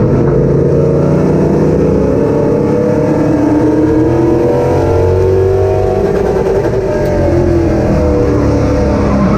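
Race car engines running at speed, several pitches rising and falling and overlapping as the cars accelerate and lift off the throttle.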